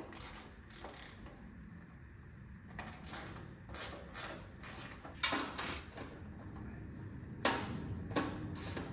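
Sheet-metal side tin being fitted onto a John Deere 430 garden tractor: irregular clicks, scrapes and knocks of metal parts, with the sharpest knocks about five and seven and a half seconds in.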